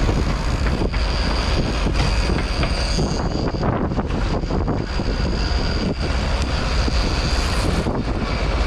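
Boat engine running with wind on the microphone, over a steady high-pitched whine: line peeling off a big-game trolling reel against its drag after a marlin strike.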